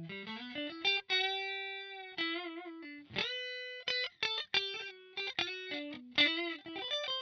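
Squier Affinity Stratocaster electric guitar played through a Line 6 POD HD500 effects unit. It plays a single-note lead line: a held note about a second in, a note with vibrato, then a note bent upward about three seconds in, followed by quicker notes.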